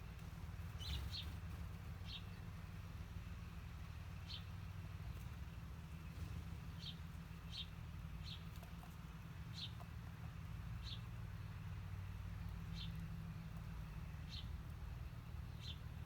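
Small birds chirping: about a dozen short single chirps, spaced irregularly. A steady low rumble runs underneath.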